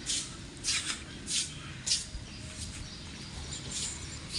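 Footsteps of a barefoot person walking: soft scuffing steps about every half second, then a pause and one more near the end, over a low steady background rumble.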